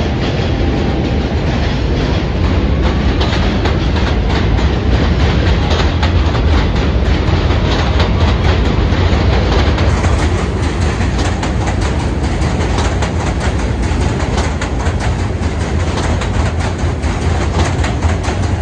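R160 New York City subway train pulling out of the station and passing close by, with a steady rumble and wheels clattering over the rail joints, the clatter coming faster as it gathers speed.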